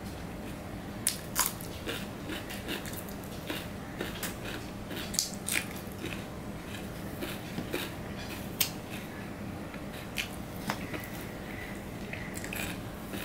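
Close-miked eating sounds: a man chewing a mouthful, with wet mouth smacks and scattered sharp clicks, while his fingers mix rice on a steel plate.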